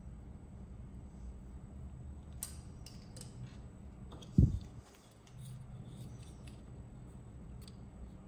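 Small plastic clicks and light rattling as hard 3D-printed parts are handled and picked through. One loud dull thump comes about four seconds in, close to the microphone.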